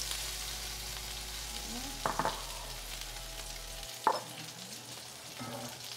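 Hot oil sizzling steadily in a skillet after pan-roasting sablefish, with a couple of short clinks of a metal utensil about two and four seconds in.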